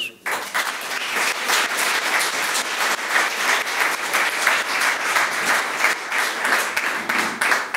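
Audience applauding: many people clapping at an even level.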